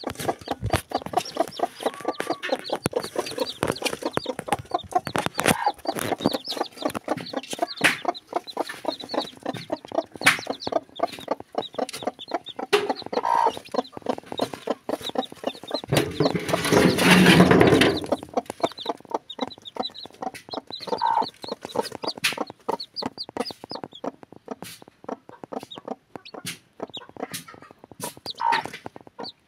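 Pakhoy mother hen clucking over and over while her day-old chicks peep. Around the middle comes a loud rustling stretch of about two seconds.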